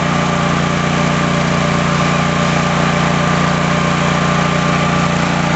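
Vehicle engine running steadily at an even speed, a constant drone with a faint high whine on top.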